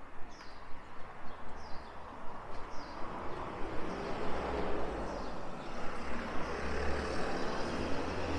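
A motor vehicle approaching, its engine hum and road noise growing louder from about three seconds in. Over the first few seconds a bird repeats a short, falling chirp.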